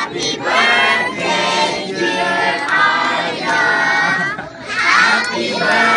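A group of children and adults singing a birthday song together, each note held for about half a second.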